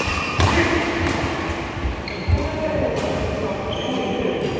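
Badminton rally in a large hall: sharp racket strikes on the shuttlecock, the loudest about half a second and a little over two seconds in, with short squeaks from court shoes and hall echo.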